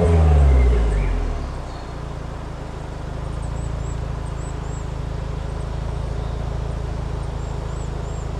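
Renault Clio 4 RS's stock exhaust, its 1.6-litre turbo four-cylinder coming off a rev and settling to a steady idle about a second and a half in.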